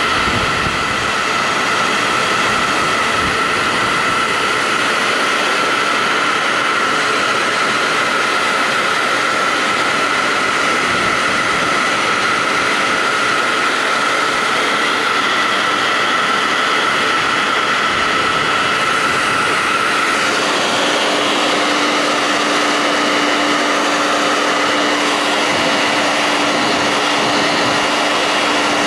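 Testarossa handheld hair dryer blowing hot air steadily to shrink heat-shrink tubing over soldered thermal fuses. Its steady whine shifts lower about two-thirds of the way through.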